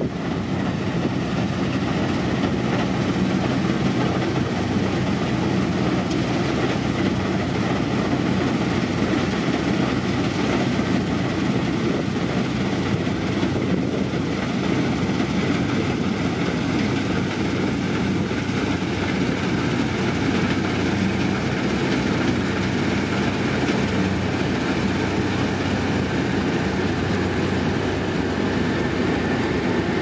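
Rice combine harvester running steadily, a constant low mechanical drone with no let-up.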